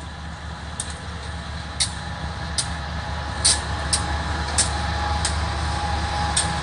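BNSF diesel-electric freight locomotives passing close by at low speed: a steady low engine rumble that grows louder over the first few seconds as the units come alongside, with about eight sharp metallic clicks from the wheels on the track.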